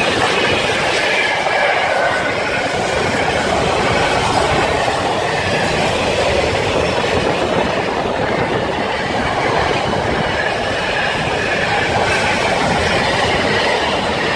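Intermodal container freight train's wagons rolling past close by, a loud, steady rumble and clatter of steel wheels on the rails.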